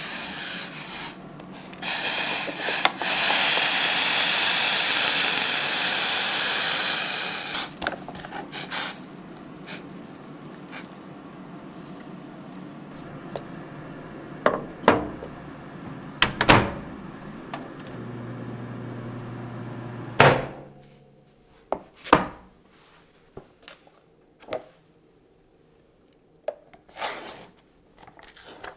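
Hot water poured into a cup of instant noodles, a rushing hiss for about five seconds. Then knocks and clunks as the cup goes into a dial-timer microwave oven, which hums for a couple of seconds and stops with a sharp click. Light taps and rustles of the cup's paper lid follow.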